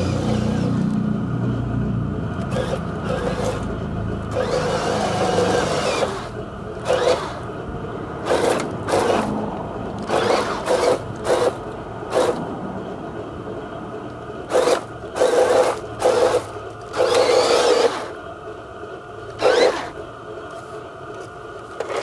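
Toy radio-controlled tank's small electric drive motor and plastic gearbox whirring in repeated short bursts as it is driven in stops and starts. A low steady rumble fills the first few seconds.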